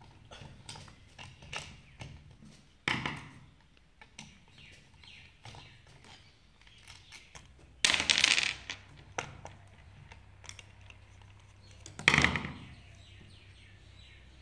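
Screwdriver and small metal parts clicking against a cutaway inline diesel fuel injection pump as its governor housing is unscrewed and taken apart. Three louder clatters come about three, eight and twelve seconds in; the one at eight seconds is the longest.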